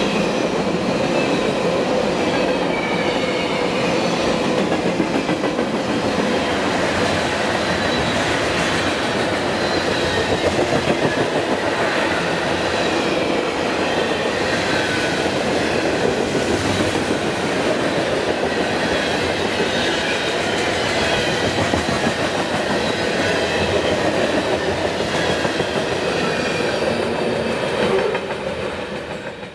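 Freight train rolling past at close range: steel wheels clattering over the rail joints under a mixed string of lumber-loaded centerbeam flatcars, boxcars and tank cars, with faint high squeals coming and going. The sound fades out at the very end.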